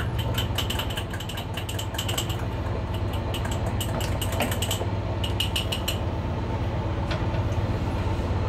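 Steady low drone of a fishing trawler's engine running below decks, with quick runs of light clinking, a spoon against ceramic mugs, through the first two seconds and again about five seconds in.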